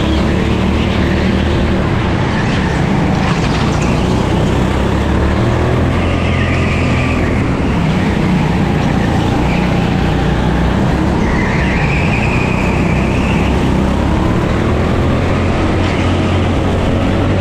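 A 9 hp Pilotkart rental go-kart's engine running at racing speed, heard onboard with wind and road noise, its pitch rising and falling through the corners. Two brief higher-pitched squeals come partway through.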